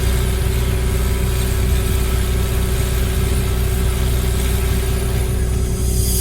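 Volvo excavator's diesel engine running steadily, with a constant low drone and a steady hum over it.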